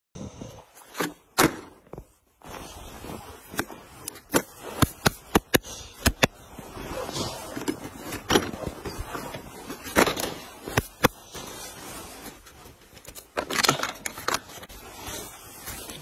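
Sharp plastic clicks and knocks with glove and snow rustling as a radio-controlled short-course truck is handled and turned over on snow by hand; its motor is not running.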